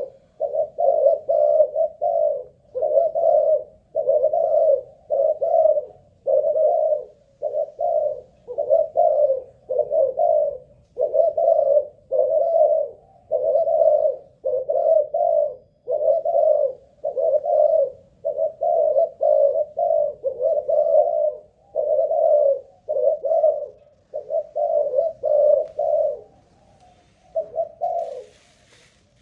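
Spotted dove (Malaysian-strain cu gáy) cooing steadily, one short coo phrase after another with hardly a pause, in a long unbroken run that breaks briefly near the end.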